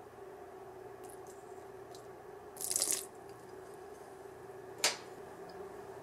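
A short pour of rum splashing into a metal mixing bowl of mashed banana, lasting under half a second about two and a half seconds in. A single sharp click follows about five seconds in, over a steady faint hum.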